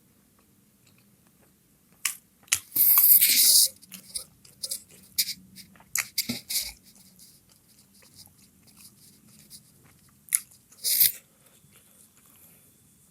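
A person eating chicken momos close to the microphone: irregular wet chewing and mouth smacks. There is a louder, longer noisy stretch about three seconds in and another near eleven seconds.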